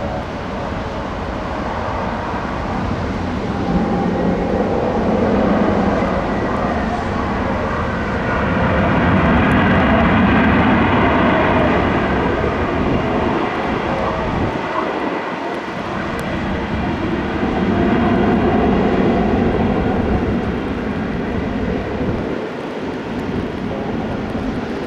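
Airbus A319neo jet engines heard on a landing: a continuous rushing engine noise with a high fan whine. It swells loudest about ten seconds in and again near eighteen seconds.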